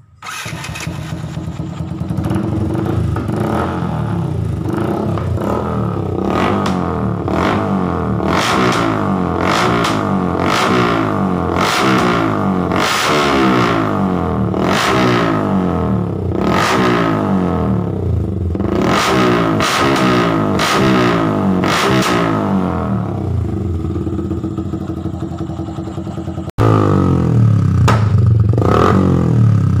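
Yamaha Vixion single-cylinder four-stroke engine starting and then being revved in repeated blips through a free-flow racing exhaust. The AIS hose has been pulled off so extra air leaks into the exhaust, a setup meant to make the exhaust pop and bang. Near the end it cuts to another motorcycle's exhaust running louder.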